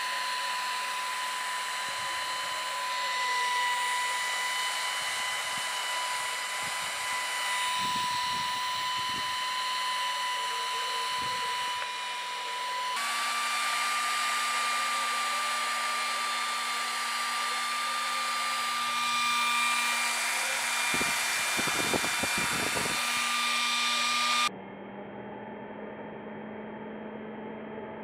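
Small electric motor spinning the fan of a homemade bubble gun, a steady high-pitched whine with the rush of air from the fan, its pitch stepping up slightly partway through. Near the end it gives way to a quieter, duller low hum.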